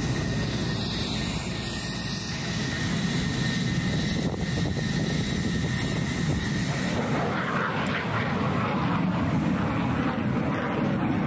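Aircraft engines running steadily, a constant low rumble with a faint high whine in the first two seconds.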